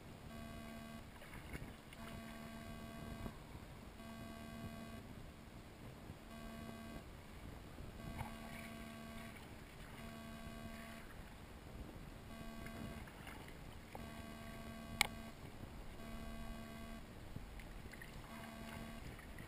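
Water lapping faintly around an inner tube drifting on a lazy river. A thin tone of unclear origin switches on and off about every second or two, and a single sharp click comes about three-quarters of the way through.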